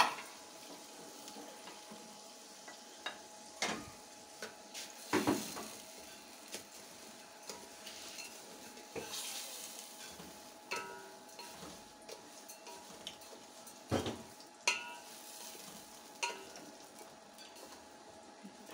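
Wooden spatula stirring sugar and parboiled rice in a large steel pot, knocking and scraping against the pot at irregular moments every few seconds, over a faint steady sizzle.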